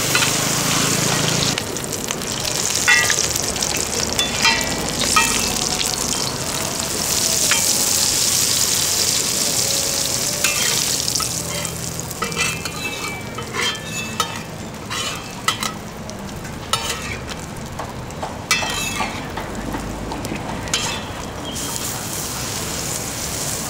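Thai-style egg omelet frying in hot oil in a wide flat wok, with a dense sizzle that eases off about halfway through. Metal spatula and ladle scrape and clink against the pan throughout, more often in the second half.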